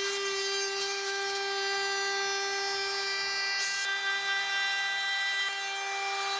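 Makita cordless compact router running at a steady high whine as its bearing-guided bit trims along the edge of a laminated plywood strip.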